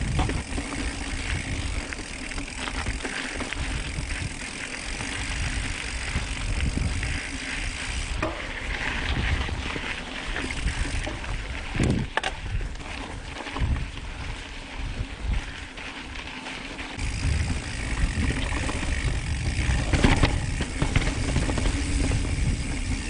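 Mountain bike rolling over rocky singletrack: the tyres running over rock and dirt and the bike rattling, with sharp knocks about twelve and twenty seconds in as it hits rocks.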